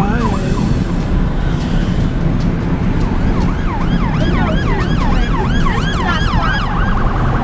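Emergency vehicle siren in a fast yelp, its pitch swooping up and down several times a second, over steady road noise inside a moving car. The yelp is faint for the first few seconds and comes in strongly from about three seconds in.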